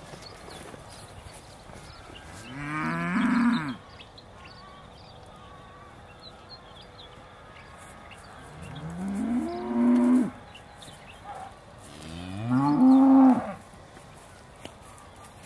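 Aussie Red dairy cows mooing: three calls, each a second or so long and rising in pitch, the last one the loudest.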